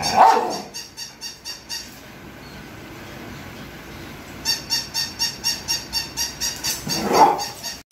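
Battery-powered robot toy dog giving a rapid run of short, high electronic yaps, about four a second, pausing for a couple of seconds and then yapping again. A louder, lower call sounds once at the very start and again near the end.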